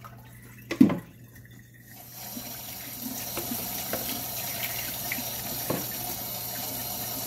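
A single sharp plastic knock about a second in as the chick waterer's reservoir and base are pulled apart. Then, about two seconds in, a kitchen sink tap is turned on and runs steadily, its stream splashing on the plastic waterer pieces being rinsed under it.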